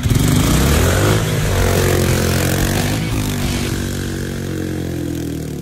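Three-wheeled ATV engine revving up and easing off twice, its pitch climbing over the first second and again around three seconds in, then settling lower.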